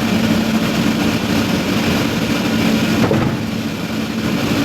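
Engine-driven machine running steadily with a constant hum.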